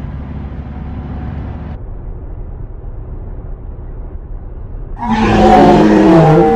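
Steady low rumble of a van cabin on the road. About five seconds in, a woman lets out a loud, drawn-out vocal cry that falls in pitch at the end.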